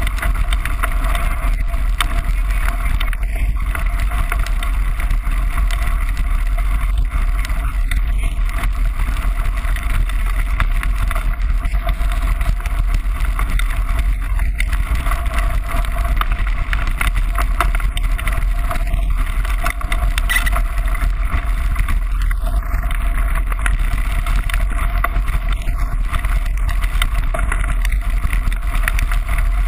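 Steady wind buffeting and gravel rumble on a moving bike-mounted camera's microphone as a mountain bike rolls down a gravel track, with a heavy low drone throughout.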